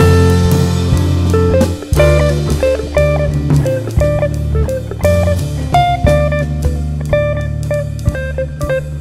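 Background music: guitar with bass and a drum kit keeping a steady beat, in a bluesy style.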